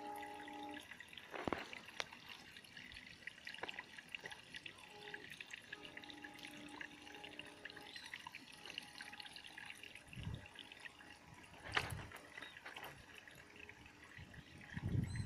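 Water dripping and trickling, with scattered small ticks and a few dull low thumps near the end.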